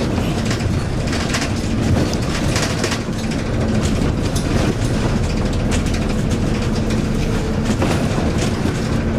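Double-decker bus driving, heard from inside on the upper deck: steady engine and road noise, with the body and fittings rattling and clicking as it runs over the road.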